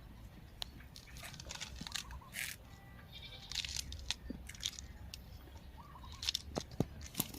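A person chewing raw fresh vegetables close to the microphone, with irregular crisp crunches and sharp mouth clicks.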